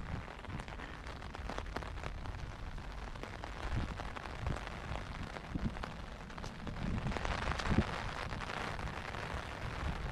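Steady rain falling, with scattered drops ticking close by and a few low thumps, the rain a little heavier about seven seconds in.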